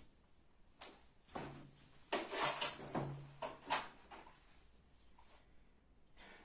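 A cluster of soft rustling and knocking handling noises, most of them in the first four seconds, then quiet.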